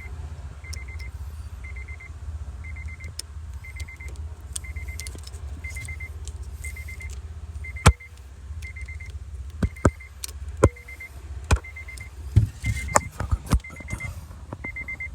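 2011 Honda Civic's warning chime beeping on and on, a quick group of high pips about once a second. From about halfway in, sharp clicks and knocks of the new third brake light's plug and housing being handled and pushed into the wiring connector.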